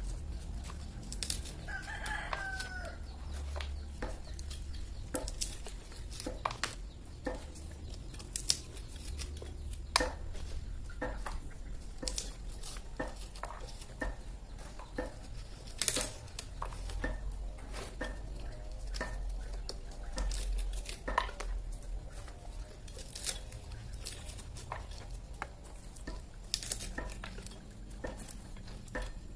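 Hand-cranked areca nut peeler cracking and stripping areca nut husks: a steady run of irregular sharp clicks and cracks as the nuts are ground through the mechanism. A rooster crows once, about two seconds in.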